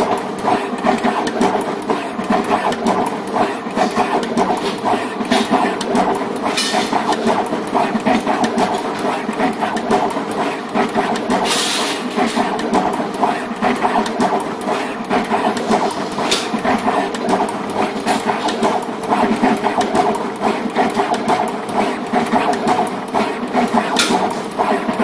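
SMT pick-and-place machine running: the placement head shuttling and the feeders working in a rapid, continuous clatter of ticks over a steady motor hum. There is a brief hiss about halfway through.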